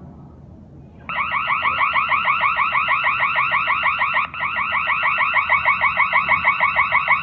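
Home alarm system going off after a door sensor is triggered: a loud electronic alarm tone pulsing rapidly. It starts about a second in and breaks off briefly about four seconds in before carrying on.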